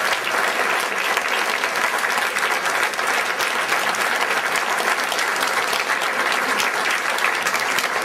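Audience applauding steadily, a dense run of many hands clapping at once.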